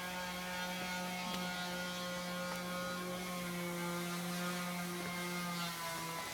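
Steady low electrical hum with a few held tones.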